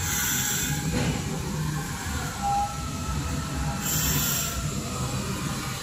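Steady low rumble of running woodworking machinery on a factory floor, with two short bursts of hissing, one at the start and one about four seconds in, and a brief beep midway.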